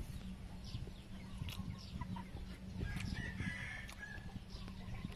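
Farmyard chickens: a rooster crowing for about a second, about three seconds in, among short chirping bird calls, over a low steady hum.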